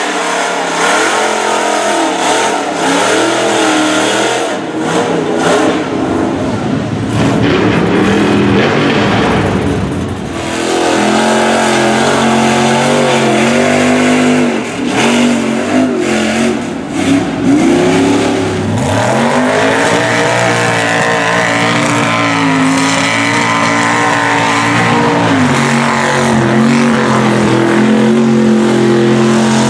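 Lifted mud trucks' engines running hard and revving as they drive through mud and water, the pitch rising and falling in several swoops before holding high and steady. The first part is mixed with the noise of churning water and mud.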